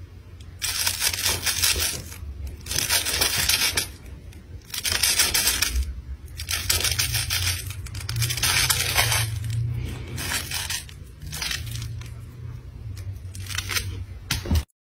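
Small toy rubbed and scratched back and forth over carpet in repeated scratchy, rustling bursts of about a second each, with a low hum underneath.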